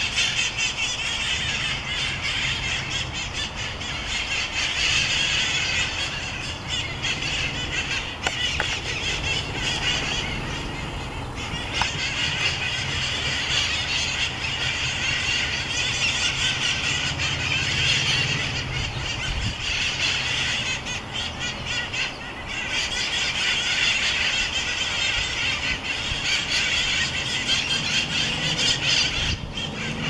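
A flock of wild parrots calling, many calls overlapping almost without a break, with a few brief lulls.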